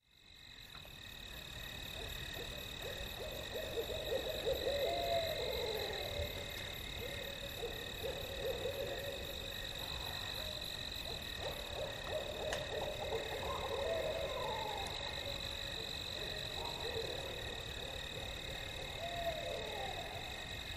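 Owls hooting at night, a series of gliding calls that rise and fall, several overlapping at times. Under them runs a steady, unbroken high-pitched night chorus. The sound fades in at the start.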